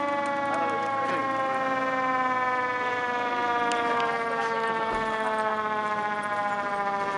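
Fire truck siren sounding one long continuous tone that slowly falls in pitch.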